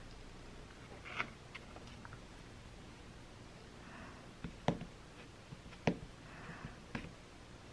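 Table knife spreading cream cheese on a bagel: soft scraping with a few sharp clicks and taps of the knife, the loudest two a little past halfway.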